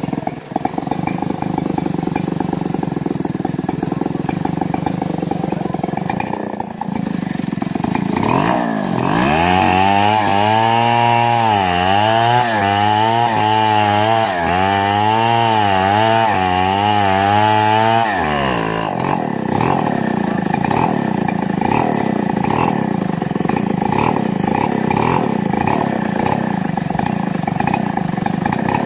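Chainsaw running, with a louder pitched engine note in the middle that dips and rises over and over for about ten seconds, as the saw is worked in a cut.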